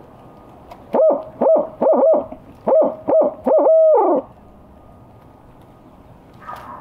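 Barred owl hooting imitated on a tube locator call: a run of about eight hoots in the barred owl's 'who cooks for you' rhythm, the last one held longest and falling off at the end. It is a turkey hunter's locator call, blown to make a gobbler gobble back and give away where he is.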